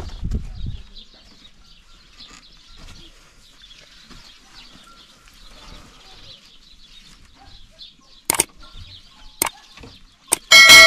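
Three sharp clicks about eight, nine and ten seconds in, then a loud ringing bell chime near the end: the click-and-notification-bell sound effect of a subscribe-button animation. Before that, only a low rumble in the first second and faint background sound.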